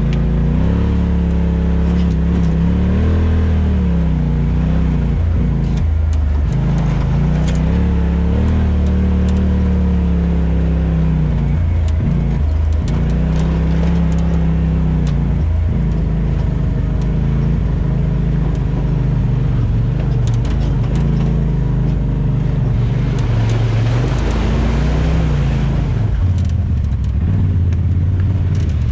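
Off-road vehicle engine running under way on a dirt trail, its pitch rising and falling as the throttle opens and closes. About three quarters of the way through, a rush of hissing noise rises over the engine for a few seconds.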